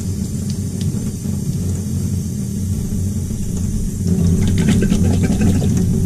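Steady low rumble of tap water running into a utility sink as a furnace condensate trap is rinsed out. About four to five and a half seconds in come a run of clicks and splashes as the plastic trap is handled under the water.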